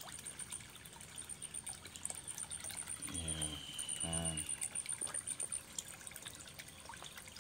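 Water trickling and pouring into a koi pond, with small splashes at the surface where koi are feeding. Two short, low pitched sounds come about three and four seconds in.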